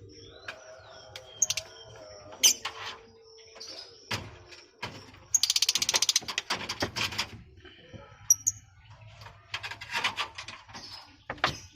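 Lovebirds giving short, high chirps among scattered knocks, with a burst of rapid rattling about five seconds in.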